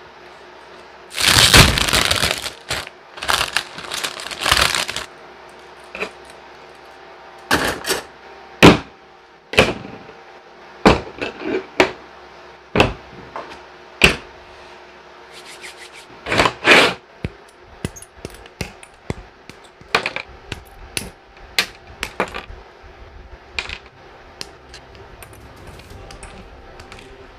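Plastic packaging crinkling for a few seconds, then a scattered series of sharp clicks and clacks from hobby tools being set down on a desk and side-cutting nippers snipping plastic model-kit parts off their runner.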